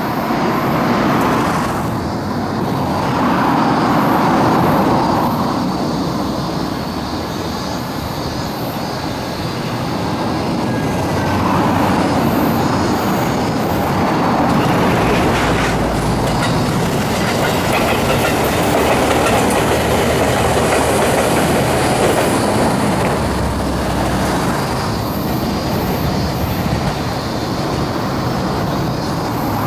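Electric train running along the track, wheels clattering over rail joints, with a faint high wheel squeal partway through.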